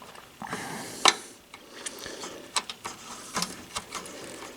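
Hand screwdriver driving screws into a metal bracket: scraping turns of the screw with several sharp metal clicks.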